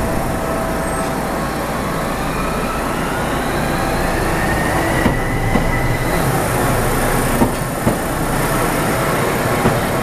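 Tokyu Setagaya Line 300-series two-car tram running past close by, its motor whine rising in pitch as it picks up speed. A few sharp wheel clacks over rail joints come about two thirds of the way through.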